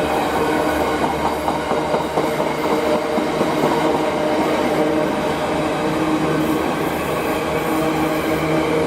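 Freight train passing through at speed: a steady, loud rush of wheels on rail, with a few steady humming tones in it.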